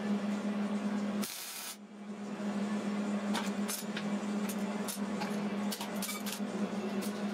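MIG welder arc sizzling and crackling steadily over a constant buzz, with one brief break about a second and a half in.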